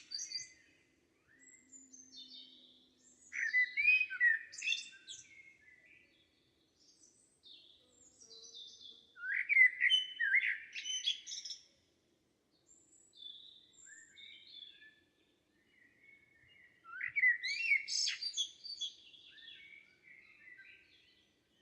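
Wild songbirds singing: a loud song phrase of about two seconds comes three times, roughly every seven seconds, with fainter chirps and calls from other birds in between.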